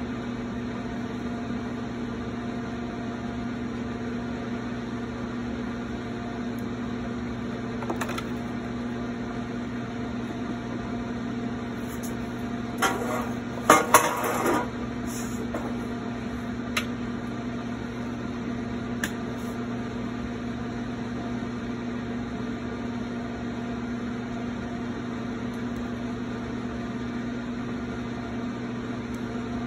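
Electric pottery wheel motor giving a steady, even hum. About halfway through comes a short clatter of hard tools being handled, with a few single clicks before and after.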